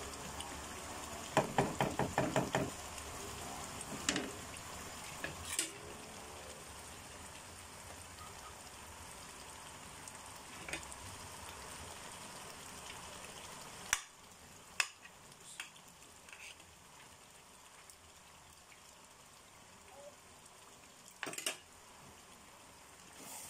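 Wooden spatula stirring thick beef stew in an enamel pot, knocking against the pot about eight times in quick succession early on, then a few lone clicks over a faint steady sizzle as the stew simmers until the potatoes and carrots soften.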